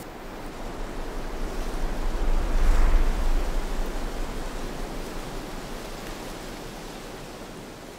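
Wind rushing, with a low rumble of wind buffeting the microphone; it swells to a peak about three seconds in and slowly dies away.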